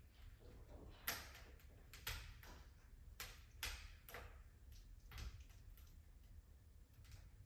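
Wood fire crackling in a fireplace insert: irregular soft crackles and sharp pops, the loudest about one, two and three and a half seconds in, over a faint low rumble.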